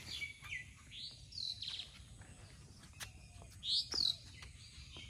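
Birds chirping outdoors: a string of short, arched chirps, with the loudest pair of calls coming close together near the end.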